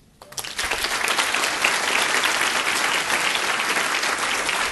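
Audience applauding, rising from quiet about half a second in and then holding steady.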